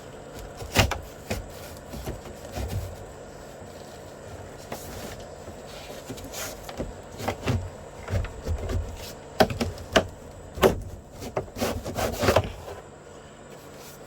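Truck-cab interior panels being worked loose and handled: irregular knocks, clicks and scraping, busiest in the second half and stopping shortly before the end.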